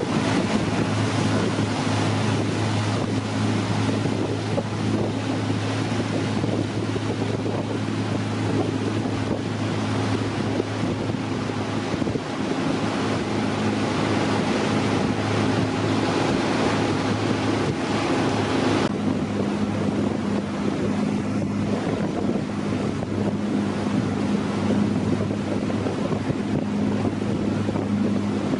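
Outboard motor of a Zodiac inflatable boat running at a steady pitch, with wind buffeting the microphone and water rushing past the hull. About two-thirds of the way through, the hiss of wind and water drops noticeably while the engine hum goes on.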